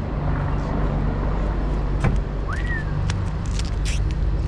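Car engine running, heard from inside the cabin as a steady low hum. A sharp click comes about two seconds in, followed by a brief squeak, and a few short clicks or rustles near the end.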